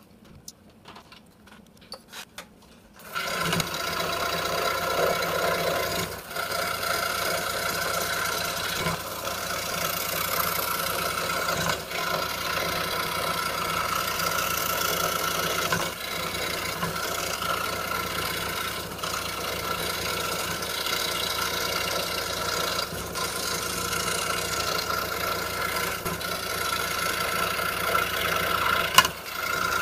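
A 26-inch RBI Hawk scroll saw starts up about three seconds in and runs steadily, its 5-0 skip-tooth blade cutting Baltic birch plywood.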